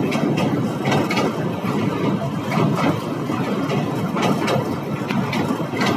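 Passenger train running onto a steel truss rail bridge, heard through an open carriage window: a steady low running noise of wheels on rail with frequent sharp metallic clanks at uneven spacing.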